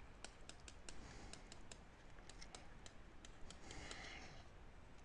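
Faint, irregular clicks of a stylus tapping on a pen tablet during handwriting, several a second, with a brief soft breathy noise about four seconds in.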